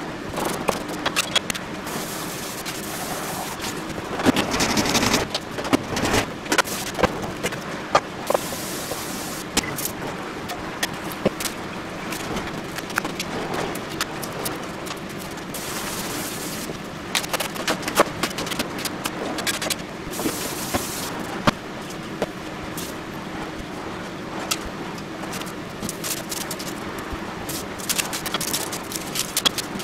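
Hands preparing vegetables at a cutting board: pulling apart bok choy, peeling leeks and onions. Scattered sharp clicks and knocks of the vegetables and knife against the board and bowl, over a steady low hum.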